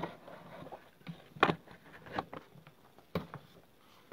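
A few scattered short clicks and taps during a pause in speech. The loudest comes about one and a half seconds in and another near three seconds.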